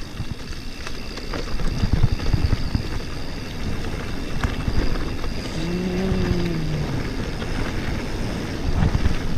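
Electric mountain bike descending a dirt forest trail at speed: wind buffeting the camera microphone and tyres rumbling over the ground, with heavy knocks and rattles over bumps about two seconds in and near the end. About six seconds in, a short low tone dips in pitch.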